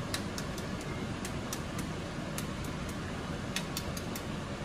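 Hard-boiled eggs being knocked together to crack their shells for easy peeling: an irregular run of short, sharp clicks of shell on shell, several a second. A steady low rumble runs underneath.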